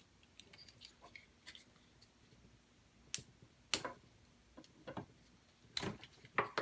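Handling noise from small plastic electronics and cables: faint ticking, then a few sharp separate clicks and taps in the second half.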